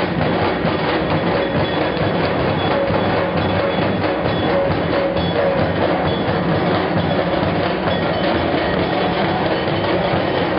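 A group of large double-headed dhol drums beaten together in a continuous, dense rhythm, with a faint metallic ringing mixed in.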